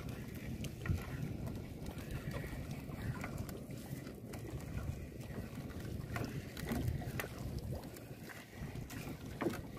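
Open-sea noise aboard a small fishing boat with no motor running: wind rumbling on the microphone and water moving around the hull, with scattered short knocks and splashes.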